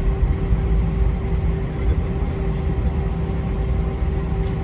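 Cabin noise aboard an Airbus A321 airliner: a steady low rumble from the engines and airflow with a constant hum on top.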